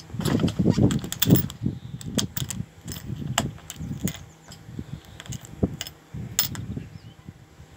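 Clicks of an ignition key switch being worked on a boat's dashboard panel, with the keyring jangling, over irregular low rumbling handling noise. This is the key being turned before a cold start of the turbo diesel.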